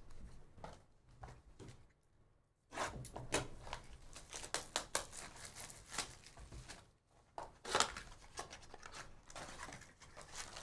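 2024 Topps Series 1 card packaging being torn open and handled: a string of short rips and crinkles, with a brief lull about two seconds in and a louder rip near eight seconds.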